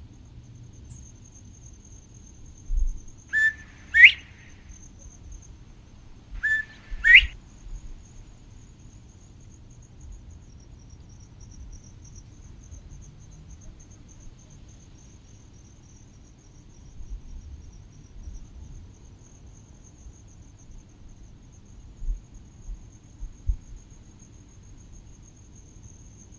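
Insects trilling steadily at one high pitch, with two loud whistled calls near the start, about three seconds apart, each a short note that then sweeps upward. Low wind bumps on the microphone come and go.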